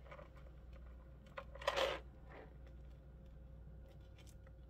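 Faint clicks and light rustling of a small gold chain necklace and its clasp being handled between long fingernails, with one brief louder rustle about two seconds in, over a low steady hum.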